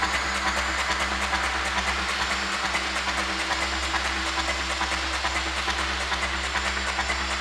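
Fast, hard electronic dance music played through a club sound system: a steady beat under a dense wash of hiss-like noise.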